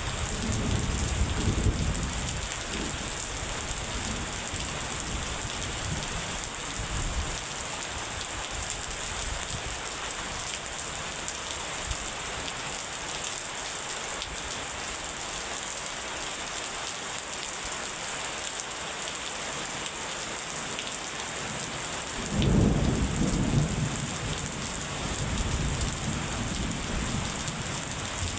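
Steady rain with rolling thunder: a low rumble dies away over the first several seconds, and a new, louder rumble breaks out about three-quarters of the way through and rolls on to the end.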